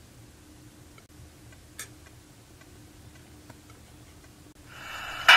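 Faint studio room tone with a few soft clicks, then near the end a drum kit cymbal swelling up into a sharp, loud drum and cymbal hit.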